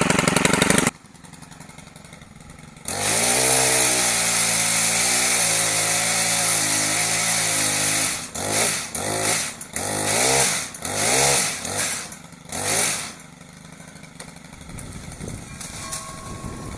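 Gas chainsaw brought up to full throttle about three seconds in and held there for about five seconds while cutting a tree limb. It then revs up and down several times before dropping back to a quieter idle near the end.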